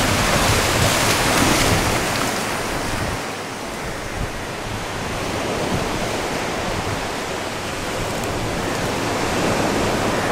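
Sea surf washing and breaking in the shallows, with wind on the microphone. About three seconds in, it drops to a softer, steady rush.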